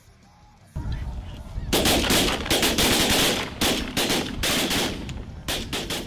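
A flock of snow geese honking, then a rapid volley of shotgun fire from several guns, roughly a dozen shots over about four seconds, some nearly on top of each other. It cuts off abruptly at the end.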